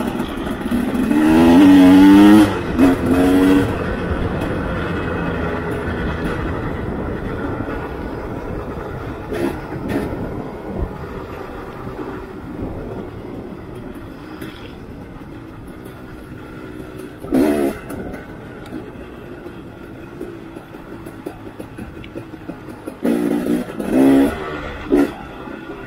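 On-board sound of a dirt bike engine, revving up with rising pitch under hard acceleration about a second in, then running steadily at speed, with a short burst of revving about two-thirds through and several more near the end.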